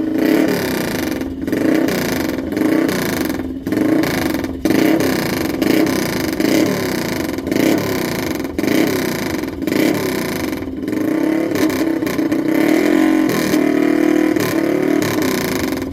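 Classic racing motorcycle engine running loud and being revved up and down over and over, with several very short breaks in the sound.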